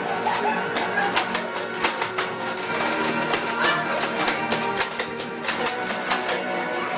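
Background music with guitar over a quick beat of sharp percussive clicks.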